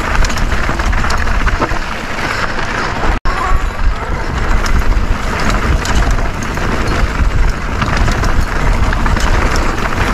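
Mountain bike riding a dirt trail: wind buffeting the camera microphone over the rattle of the bike and the tyres on dirt, with many short clicks and knocks. The sound cuts out for a moment about three seconds in.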